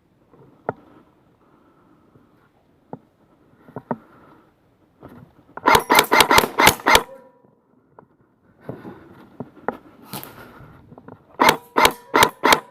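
Airsoft gun fired in two rapid strings of sharp shots, about six shots each: one about six seconds in and one near the end. Faint knocks and rustling come in between.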